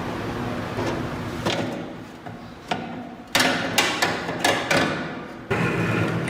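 A series of sharp knocks and taps, about seven, as the metal parts of an old rusty vegetable grater are worked on, the loudest cluster near the middle.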